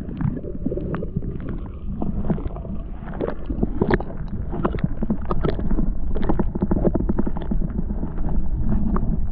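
Muffled underwater sound of shallow lake water heard through a submerged action camera: a low rumble of moving water with many irregular clicks and taps as a hand holds a yellow perch and releases it.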